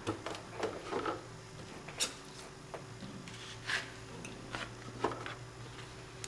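Light handling noises: a scattering of short soft clicks and taps as plastic cutting plates and paper are moved around a hand-cranked Cuttlebug die-cutting machine, over a faint low hum.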